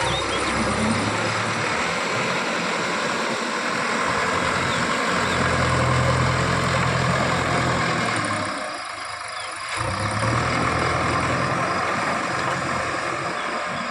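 JCB 3DX backhoe loader's diesel engine running steadily under load while digging and loading. It is loudest in the middle, eases off briefly about nine seconds in, then picks up again.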